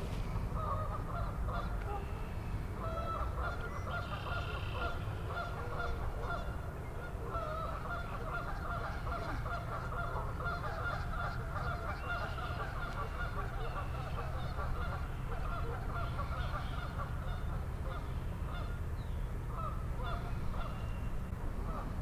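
Many geese honking without pause, their calls overlapping. These are nesting geese riled up by pelicans.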